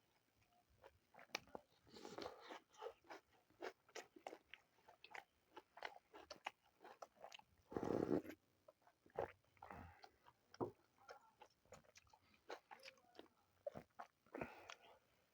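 People eating a meal of roti with soya-potato curry: irregular bites, mouth clicks and chewing, with a louder bite about eight seconds in.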